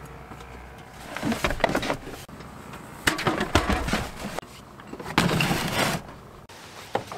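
Hard plastic cooler and storage tote being loaded into a vehicle's rear cargo area: several bursts of knocks and bumps, with a longer scraping slide about five seconds in.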